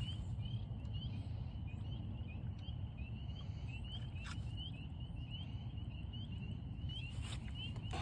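A small animal repeating a short, high, rising chirp about two to three times a second, over a steady low rumble.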